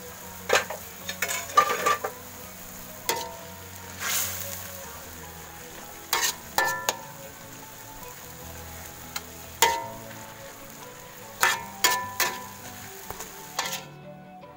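Spinach stir-fry sizzling in a wok, with a metal spatula scraping and clacking against the pan at uneven intervals as the greens are tossed.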